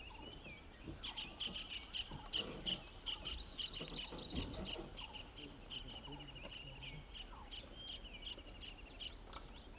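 Outdoor birdsong: many short chirps and a few rapid trills from several birds, over a steady high-pitched insect drone.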